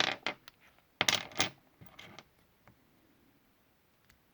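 Small metal Torx driver bits clinking and clattering as they are rummaged through and tried: a quick cluster of clicks at the start, another about a second in, and a few lighter clicks around two seconds.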